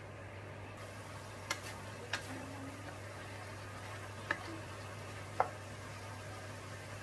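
Wooden spatula stirring pork liver in sauce in a non-stick wok, with a faint sizzle over a steady low hum, broken by four sharp clicks against the pan.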